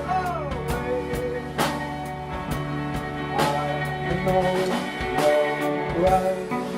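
A rock band playing live: drum kit hits over sustained guitar chords, with a wavering melodic line on top.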